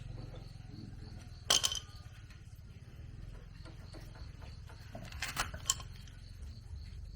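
A few sharp metallic clinks, one about a second and a half in and a quick cluster around five to six seconds in, over a low steady hum.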